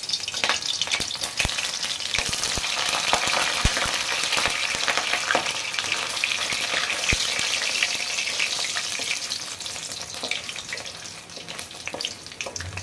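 Chicken strips deep-frying in hot oil in a karahi, sizzling and crackling with scattered sharp pops; the sizzle eases off a little near the end.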